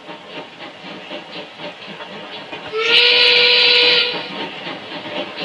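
A steam locomotive whistle sounds once, a little under three seconds in, holding one steady pitch for about a second and a half. Under it runs the steady, rhythmic running noise of an OO gauge model steam train on the track.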